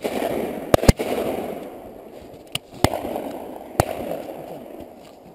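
Shotgun shots: a loud one right at the start, a quick pair about a second in, and more spaced over the next three seconds. A rushing noise fades slowly behind them.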